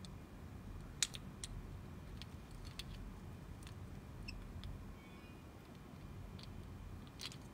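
Faint scattered clicks and taps of a small band-resizing tool pressing a pin into a watch band, with a sharper click about a second in and another near the end.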